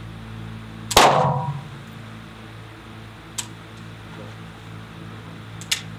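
A single shot from a Tokarev TT-33 pistol about a second in, ringing on for about half a second in the enclosed walled range. Two much fainter sharp clicks follow later, over a steady hum.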